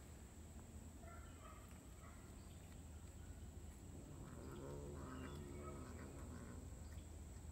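Faint cat meowing, a drawn-out call about four seconds in after a few short chirping sounds, over a steady high-pitched insect drone.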